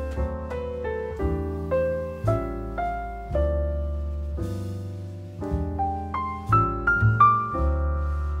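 Background piano music: a melody of single struck notes over long low bass notes.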